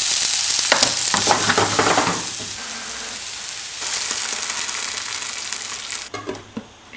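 Sliced onions sizzling in hot oil in a frying pan, with scraping clicks from stirring. About four seconds in, water poured into the pan brings a louder hiss, and the sizzle stops abruptly about six seconds in.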